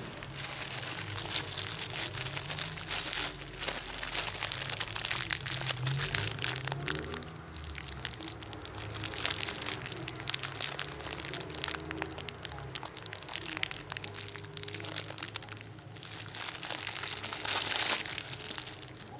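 Small clear plastic bag of CPU cooler mounting screws crinkling as it is handled, a continuous irregular crackle that is loudest near the end.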